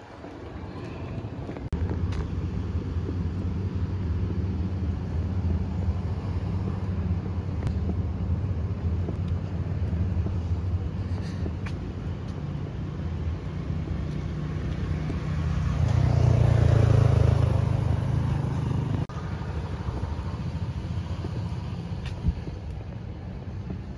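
Steady low rumble of road traffic, with a car passing closer and louder for a few seconds about two-thirds of the way through.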